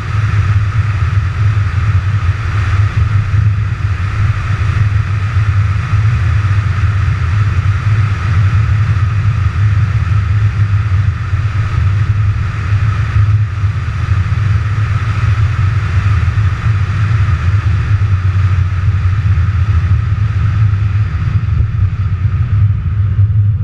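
McLaren 570GT driving at a steady speed, picked up by a camera mounted outside on the car's nose: a deep, steady rumble of road and wind noise, with no revving or gear changes.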